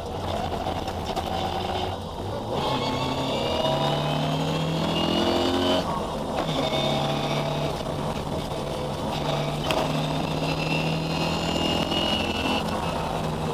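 Ford Escort historic rally car's engine, heard from inside the cabin, pulling hard under full throttle. The revs climb and drop back twice as it changes up, about two and six seconds in. It then holds high revs before easing off near the end, with road and tyre noise underneath.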